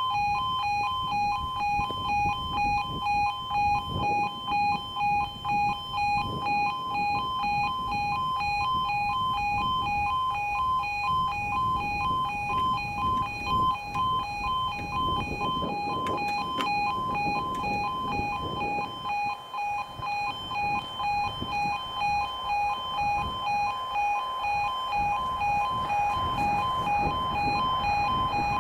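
E2S Appello level crossing alarms sounding a continuous two-tone warble, alternating between two close pitches: the warning that a train is approaching and the half barriers are coming down.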